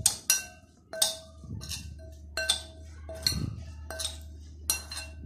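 Metal spoon stirring chopped vegetables and spices in a glass bowl, clinking against the glass about once or twice a second, each clink ringing briefly.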